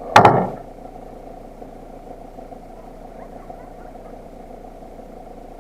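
A sharp double knock with a short rattling tail just after the start, then a steady low background rumble.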